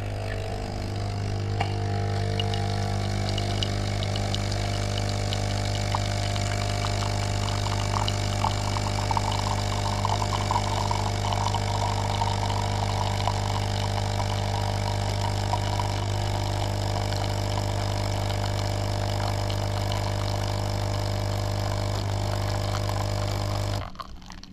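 Capsule coffee machine's pump humming steadily while it brews, with coffee streaming into a ceramic mug; the hum cuts off near the end.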